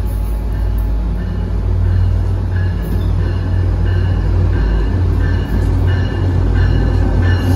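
Tri-Rail diesel locomotive and commuter train arriving at a platform: a steady low engine rumble that grows louder as it nears, with short high squeals coming and going from about a second in as it slows.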